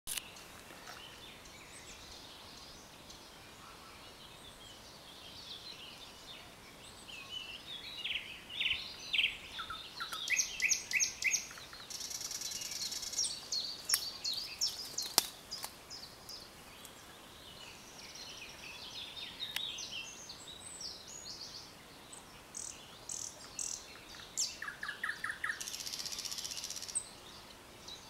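Thrush nightingale singing: phrases of rapidly repeated piping notes and dry, buzzy rattles, broken by short pauses. The song is loudest from about eight to fourteen seconds in and again near the end.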